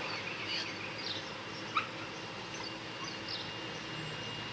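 Short high-pitched animal calls repeating several times over a steady background, with one brief louder call or knock about two seconds in.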